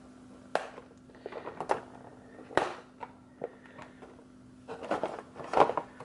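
Handling noise from a toy being unboxed: scattered sharp clicks and knocks of plastic and cardboard packaging, then denser rustling near the end as the box is worked with scissors. A faint steady hum runs underneath.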